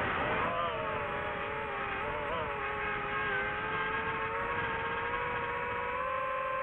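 DJI FPV drone's motors and propellers whining in flight: a steady pitched hum that dips slightly in pitch about half a second in, then holds steady.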